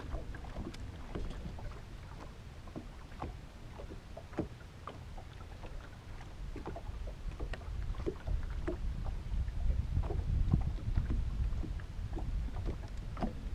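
Lake water lapping and slapping against a boat hull, with a low wind rumble on the microphone that swells for a few seconds past the middle, and many small scattered ticks and slaps.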